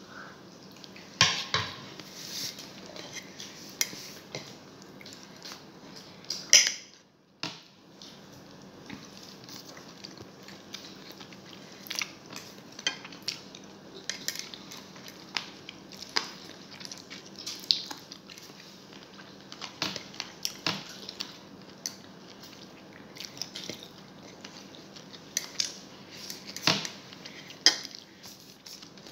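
A metal fork and spoon clinking and scraping on a ceramic plate of rice and adobo, in sharp, irregular clicks, a few of them loud.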